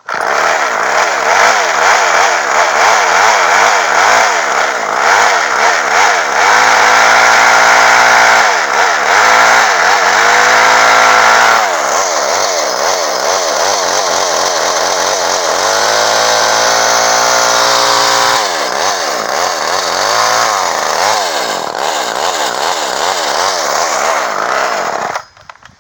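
Poulan Micro Pro Super XXV Deluxe two-stroke chainsaw engine running, revved up and down over and over and held at high revs twice, then stopping abruptly near the end. The saw has just been revived after not running, and its idle is set so low that it will not keep idling on its own.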